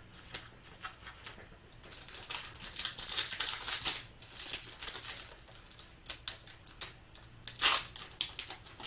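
Trading cards and their foil pack wrapper being handled: irregular crinkling, with quick sliding scrapes and clicks as cards are shuffled through by hand, busiest about two to four seconds in and again near the end.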